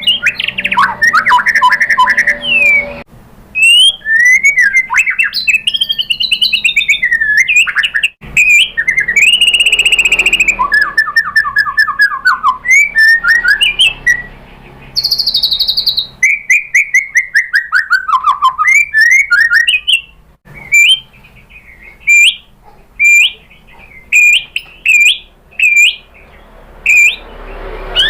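White-rumped shama singing: a rapid, varied run of clear whistled phrases, trills and sliding notes, changing in the last third to a series of short sharp notes about a second apart.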